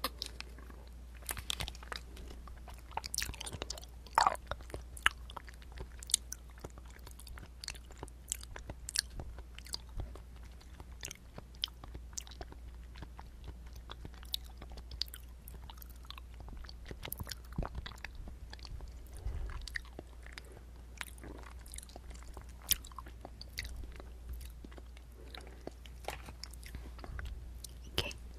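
Close-miked chewing and biting of a dessert: wet mouth clicks and sharp little snaps, irregular throughout, a few louder ones about four seconds in, over a faint steady low hum.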